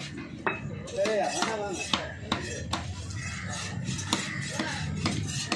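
A large knife chopping trevally (paarai) fish into cubes on a wooden log chopping block. Each stroke lands as a sharp knock on the wood, at an uneven pace of roughly two a second.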